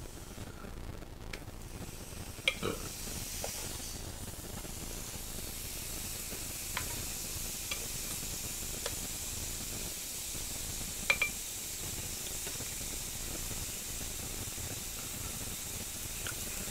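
Slices of frozen pork belly (samgyeopsal) sizzling on a grill pan. The hiss builds over the first few seconds and then holds steady, with a few sharp clicks of metal tongs against the pan, the loudest about eleven seconds in.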